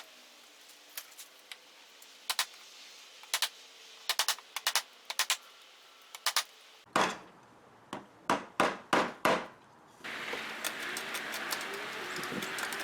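Light hammer taps in quick clusters, then a run of heavier knocks; about ten seconds in a steady hiss takes over.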